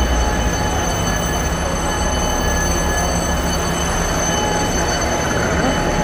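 Electric fire alarm bell ringing continuously, a steady high metallic ring, over a low engine rumble.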